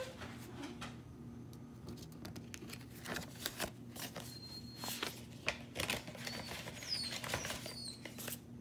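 Soft paper rustling and light clicks of a trading card and its paper envelope being handled, with a few faint, short high chirps near the end.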